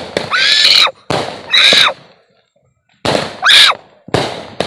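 Fireworks going off: four sharp bangs about a second apart, three of them followed a moment later by a bright, hissing crackle.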